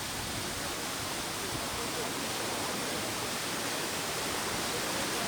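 Waterfall's steady rush of falling water, a constant hiss-like roar spread evenly across high and low pitches.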